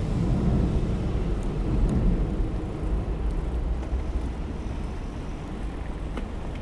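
Steady low rumble of a moving bicycle: wind on the microphone and tyres on tiled paving, with city traffic behind it. It is a little louder for the first couple of seconds, then eases.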